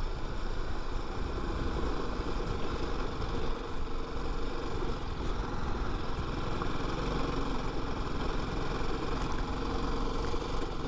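Motorcycle engine running steadily, with a constant low rumble.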